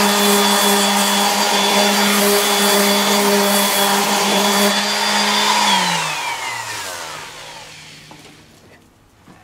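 Electric orbital sander running steadily as it sands a fiberglass repair on a mower deck. About six seconds in it is switched off and winds down with a falling pitch, fading out.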